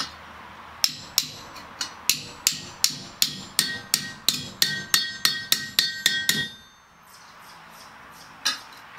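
Hand hammer striking a metal bracket on an anvil to straighten it: about twenty blows in quick succession, the later ones ringing, then a pause of about two seconds and one more blow near the end.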